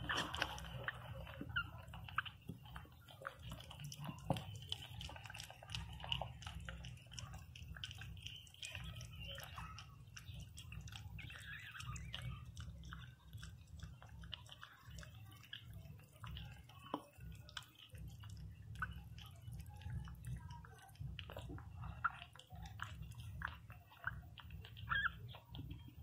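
Newborn Pinscher puppies suckling at their mother: a steady stream of small wet smacking and clicking sounds, with a few faint short squeaks.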